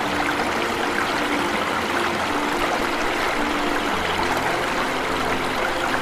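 Steady rushing and splashing of water falling over a small waterfall. Soft held notes of background music sit beneath it.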